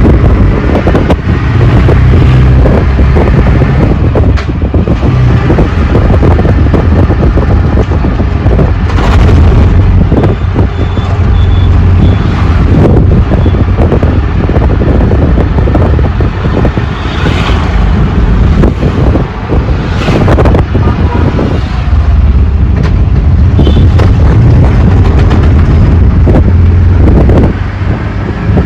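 Auto rickshaw riding along with its engine running as a steady low rumble. Heavy wind buffets the microphone, and frequent sudden thumps and jolts come from the road.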